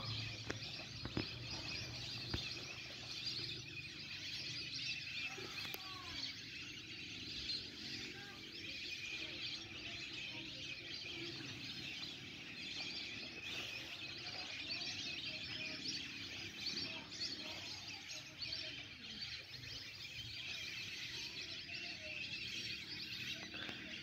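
A distant flock of wetland birds calling continuously: a dense, steady chatter of high calls, with a few faint lower whistling calls here and there.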